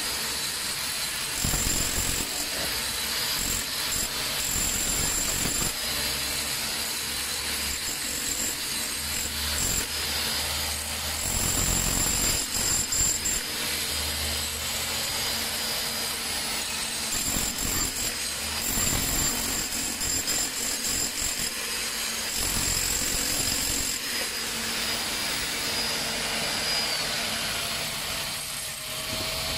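Handheld electric demolition hammer with a long chisel bit hammering continuously against a concrete wall, chipping off the surface. It eases off near the end.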